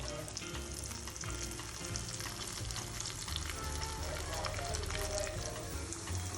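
Breaded cheese corn dogs deep-frying in hot oil, a steady dense sizzle and crackle, with background music under it.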